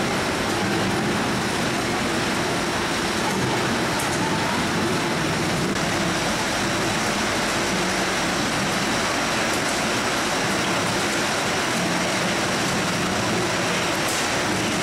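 Steady, even din of citrus packhouse machinery: conveyors and a fruit grading and sizing line running, with oranges rolling along the lanes.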